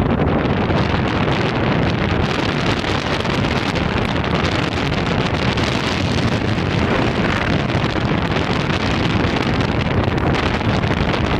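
Steady rushing wind noise on the microphone mixed with the road noise of a moving vehicle.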